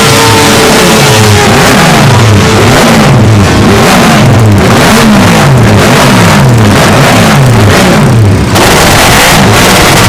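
Classic MV Agusta multi-cylinder four-stroke racing engine on a paddock stand, revved in quick throttle blips about twice a second, the pitch rising and falling with each blip. The blipping stops abruptly about eight and a half seconds in.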